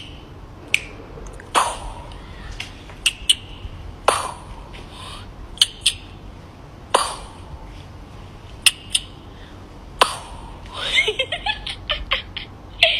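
A series of sharp clicks, about a dozen, irregularly spaced and some followed by a short ring. A short cluster of fainter, higher sounds comes near the end.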